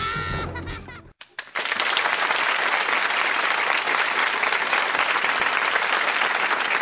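A cartoon minion's short high-pitched yell, then about a second and a half in, a crowd applauding steadily.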